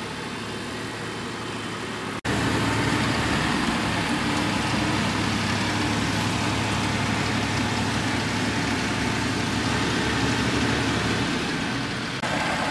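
Mahindra tractor's diesel engine running steadily with its front loader carrying a limestone block. The sound steps up suddenly louder about two seconds in.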